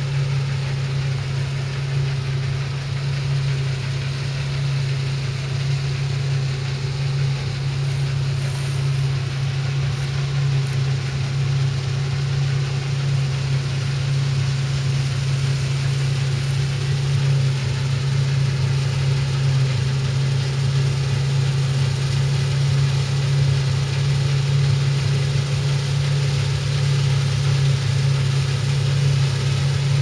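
New Holland CX8090 combine harvester running steadily as it cuts barley, a constant low drone that grows gradually louder as the machine comes closer.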